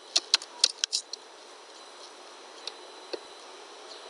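Computer keyboard keystrokes: a quick run of about half a dozen key clicks in the first second, then two single clicks later on.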